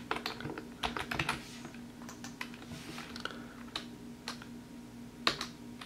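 Typing on a computer keyboard: a quick run of keystrokes in the first second and a half, then scattered single key presses.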